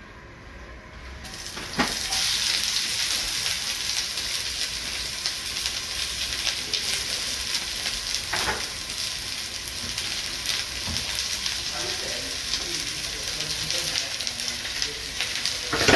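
Stir-fry ingredients sizzling in hot oil in a pan, starting suddenly about two seconds in and then running as a steady dense sizzle, with a few sharp knocks of the cooking utensil.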